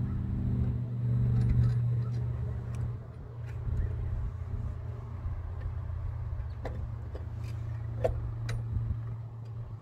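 A steady engine-like drone that stops near the end, with a few light metallic clicks and taps from hands and tools working on the diesel engine's injection pump fittings.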